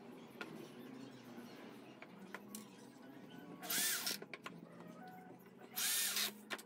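Corded electric drill boring into a wooden frame in two short bursts about two seconds apart, each one spinning up and winding down, with small handling clicks between them.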